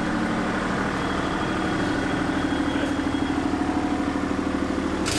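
Excavator engine running steadily at a constant speed.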